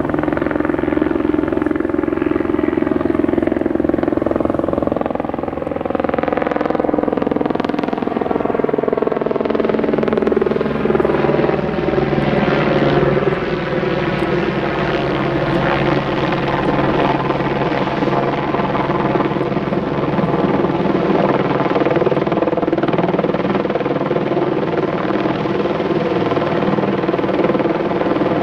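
A loud, steady mechanical drone made of several tones, which slide down in pitch about six to ten seconds in, as a vehicle passes by.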